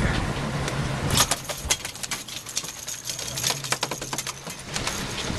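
A boat motor hums steadily under irregular clicking and rattling of fishing gear on deck.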